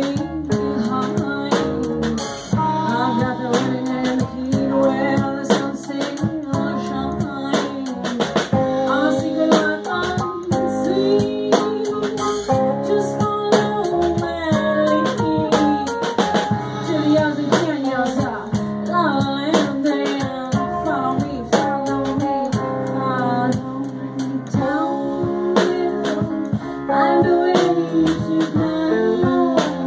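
Live band playing a song: a woman singing over electric guitar, upright bass, keyboard and drums, with a steady drum beat throughout.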